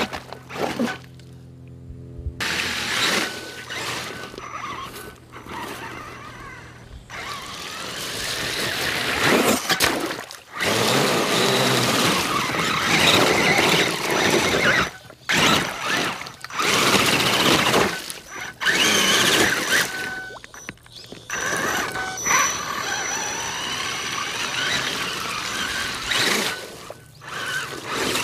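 Radio-controlled truck driving across a frozen creek, its tyres crunching over and breaking through thin ice and splashing water, in loud irregular bursts with brief lulls.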